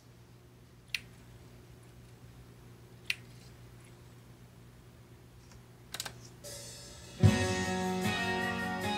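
A few sharp clicks from the Denon DN-950FA CD cart player's front-panel controls as a new track is cued, over a faint steady hum. About seven seconds in, music with guitar starts abruptly as the player begins playing the cued track.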